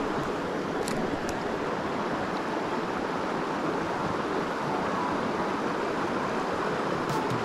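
Steady rushing of a shallow, flowing river, with a couple of faint clicks about a second in and a few more near the end.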